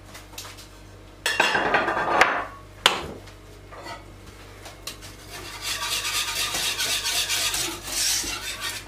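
Kitchen utensil scraping and rattling against a cooking pot. There is a short scrape about a second in, then a few seconds of quick, even scraping strokes, like stirring in the pot, toward the end.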